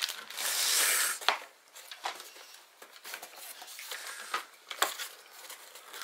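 Clear plastic bag around an AC adapter crinkling as it is handled, loudest in the first second, followed by scattered light taps and rustles of cardboard packaging being moved.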